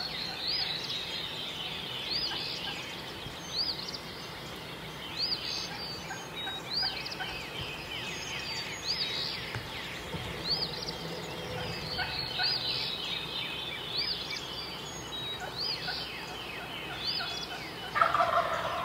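Wild birds calling: a short, high, arched note repeats about every second and a half over a steady mix of quick falling calls.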